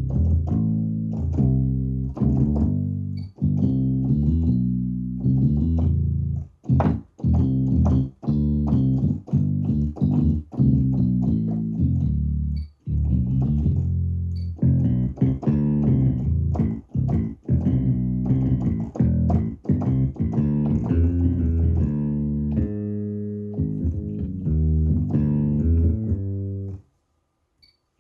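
Yamaha MODX6 synthesizer playing a bass guitar voice: a run of low plucked notes and short riffs, with brief gaps between phrases and a pause near the end.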